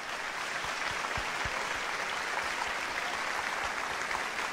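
Audience applauding, a steady sound of many hands clapping.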